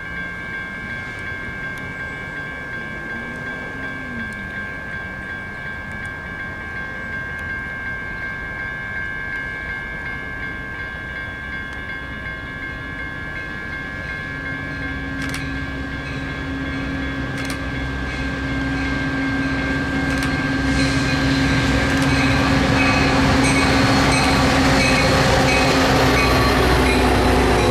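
Metra commuter train approaching and rolling past, a diesel locomotive pulling bilevel coaches. A steady low engine tone comes in about halfway through and grows louder. In the last third the train passes close, with rail and wheel noise at full level.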